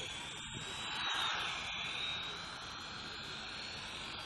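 Small electric RC buggy's motor and drivetrain whining as it drives, a thin high-pitched whine over a hiss, swelling a little about a second in.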